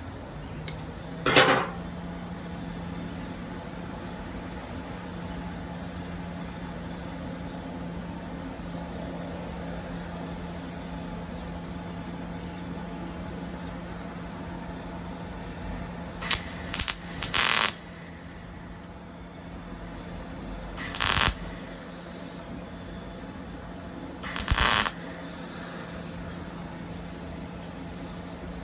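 Welding machine humming steadily while short tack welds are laid on cracked tailgate sheet steel: each weld is a brief crackling burst under a second long, one about a second in, a quick cluster of three a little past halfway, then two more a few seconds apart.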